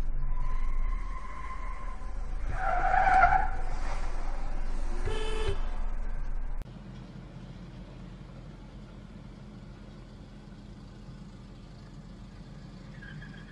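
Car traffic at a junction, with a loud high-pitched squeal about three seconds in and a shorter one about five seconds in. About six and a half seconds in, the sound drops abruptly to a quieter, steady hum of a car interior.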